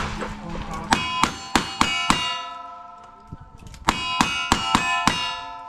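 Single-action revolver shots at steel plate targets: five quick shots about a third of a second apart, a pause of nearly two seconds, then five more. Each hit sets the steel plates ringing with a clear metallic tone that hangs between shots.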